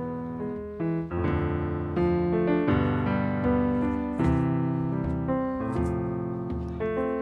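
Piano or keyboard playing slow sustained chords, a new chord struck every second or so.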